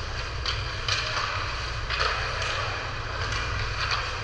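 Ice hockey game: skate blades scraping the ice in short hisses, about seven in four seconds, over a steady low hum.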